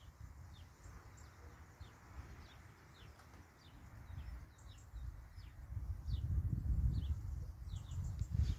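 Low rumble of thunder from a close lightning strike, building from about halfway through and loudest near the end. A bird repeats a short, falling chirp about twice a second throughout.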